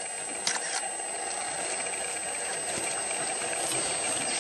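A steady, rustling rattle, slowly growing louder, typical of a crested porcupine rattling its quills in alarm.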